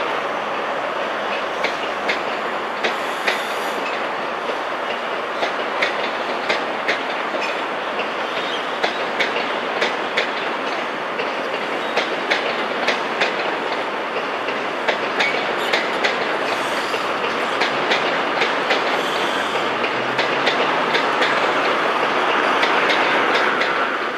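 Train wheels running over rail joints and pointwork, a steady rumble with sharp clicks about twice a second, swelling near the end.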